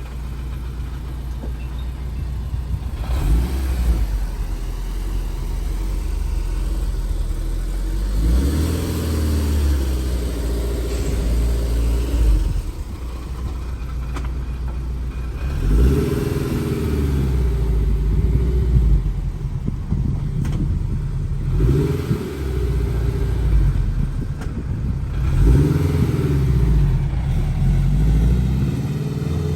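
Honda S2000's four-cylinder engine breathing through an aftermarket dual cat-back exhaust, driven past under acceleration. The revs climb and fall away in several separate pulls.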